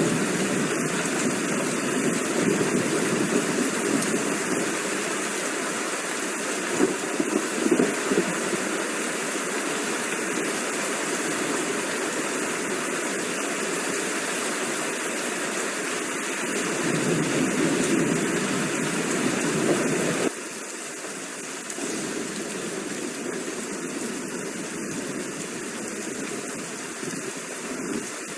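Steady heavy rain, with low rumbles swelling and fading a few times. The sound drops abruptly in level about twenty seconds in.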